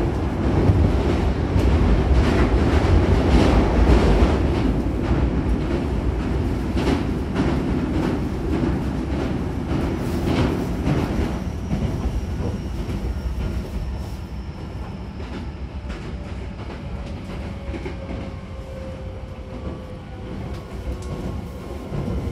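Hankyu 9300-series electric train running, heard inside the car by the doors: a heavy rumble with rapid rail-joint clicks, loudest for the first ten seconds or so while it crosses the river bridge. After that it gets quieter, and a thin motor whine falls slowly in pitch as the train slows towards the next station.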